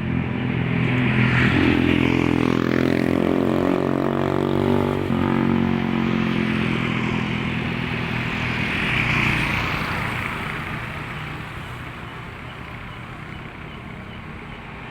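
Road traffic passing close by. A vehicle's engine note swells and passes in the first few seconds, a second vehicle passes about nine seconds in, then the traffic noise fades.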